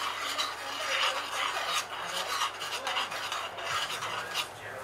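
A spoon stirring melted butter, sugar and honey in a stainless steel saucepan, scraping the bottom and sides of the pan in quick repeated strokes, about two a second. The sugar has just melted and the butterscotch sauce is being brought to the boil.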